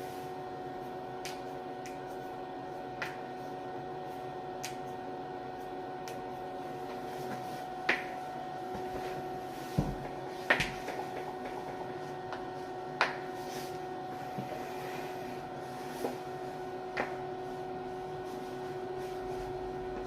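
Several sharp, single cracks of a person's neck joints being cracked, spaced unevenly a second or more apart; the loudest come near the middle. A steady hum runs underneath.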